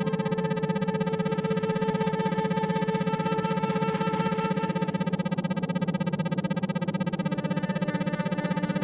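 Synthesized meditation drone of several steady layered tones, a low one loudest, the whole sound pulsing on and off rapidly and evenly in the manner of isochronic tones.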